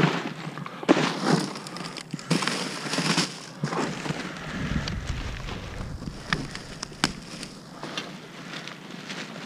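Wet plastic garbage bags rustling and crinkling as gloved hands handle them and poke holes in them, with several sharp snaps among the crackle.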